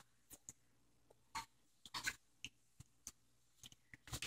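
Near silence, with a handful of faint, scattered clicks and smacks from a baby eating soft zucchini spears in a high chair.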